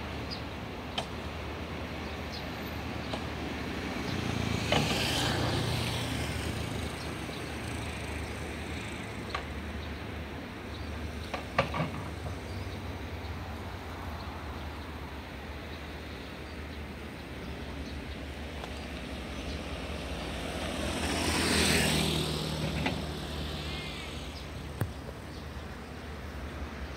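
Road vehicles passing close by, one about five seconds in and another about twenty-two seconds in, each swelling and then fading, over a steady low hum. A few sharp clicks come near the middle.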